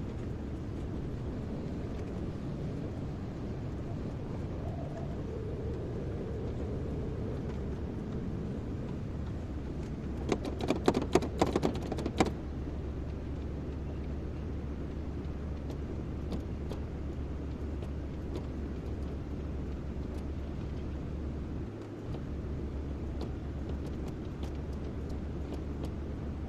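Excavator's diesel engine running with a steady low rumble. About ten seconds in, a rapid cluster of sharp knocks lasts about two seconds.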